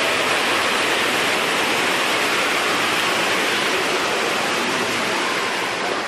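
Steady rushing of water: a loud, even hiss that eases off a little near the end.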